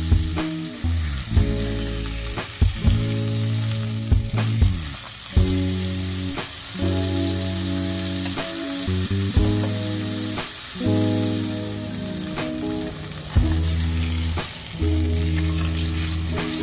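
Sirloin steak sizzling steadily as it sears in hot oil in a cast-iron skillet. Background music plays throughout, with slow, held chords over a deep bass.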